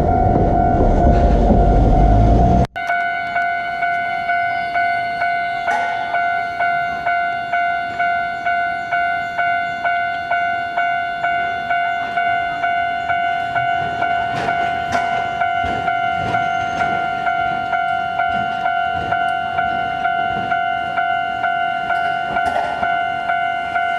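A tram passing close by, a loud low running noise that cuts off suddenly about three seconds in. Then a level-crossing warning bell rings with even electronic dings, about three every two seconds, as a Hankai Tramway tram approaches.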